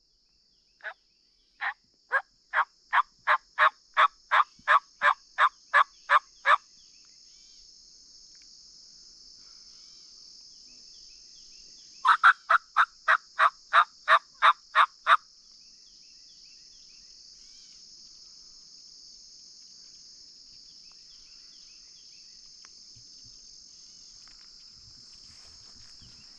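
Turkey hen yelping: a long run of about eighteen evenly spaced yelps, about three a second and growing louder, then after a pause a shorter run of about ten more. A steady high hiss runs underneath.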